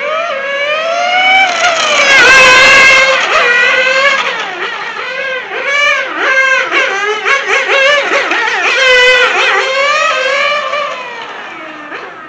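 Small nitro glow engine of a 1/8-scale RC car revving high, its pitch repeatedly climbing and falling as it accelerates and brakes around the track. It is loudest about two seconds in and again about nine seconds in, and fades with a dropping pitch near the end.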